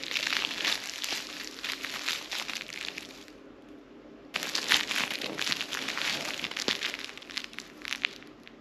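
Dry raffia straw on a cat's toy centipede crinkling and rustling as a cat bites, grabs and kicks it. The rustling comes in two spells with a pause of about a second between them.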